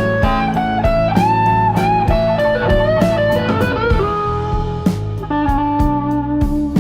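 Background music: a blues-rock track led by electric guitar over a steady beat.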